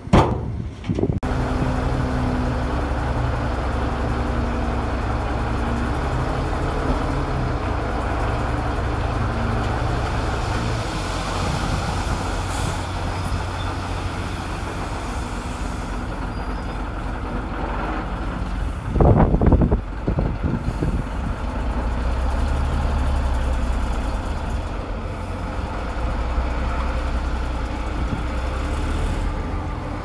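Heavy diesel engine of earthmoving machinery running steadily, its pitch shifting a few times under changing load. A loud, short noisy burst comes right at the start, and another lasting about a second and a half comes about two-thirds through.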